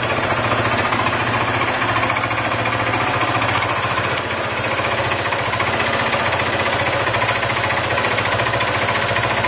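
Yamaha Fazer 250's air-cooled single-cylinder four-stroke engine running steadily, with a fast metallic clatter from inside the engine. The owner suspects the piston is knocking.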